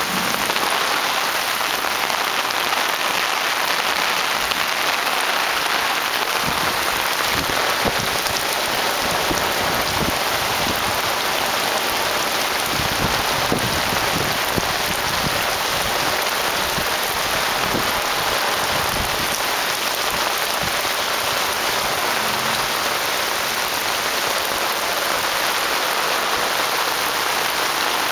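Heavy rain falling on pavement and foliage, a steady even hiss. Through the middle, irregular low splashes of bare feet wading through shallow floodwater on the path.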